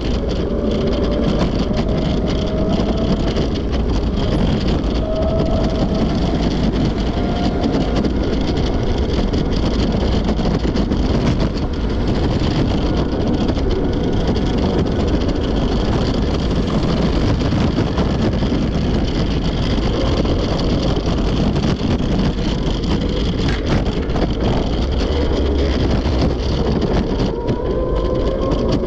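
Steady outdoor noise of road traffic with wind on the microphone, and now and then a passing vehicle's engine note sliding up or down.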